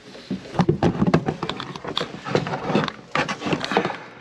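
Irregular knocks and rattles of a coiled steel drain-auger cable being handled and pushed into a drain pipe.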